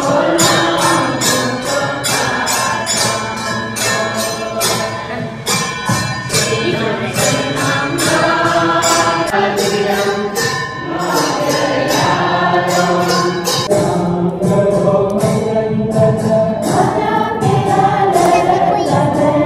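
A congregation singing a Donyi-Polo devotional hymn together in unison, clapping their hands on a steady beat.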